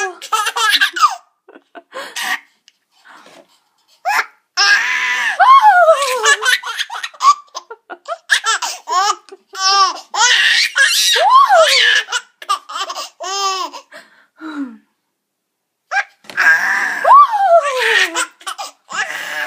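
A six-month-old baby laughing hard in several bouts of belly laughs, each laugh a high note sliding down in pitch, with short pauses between the bouts.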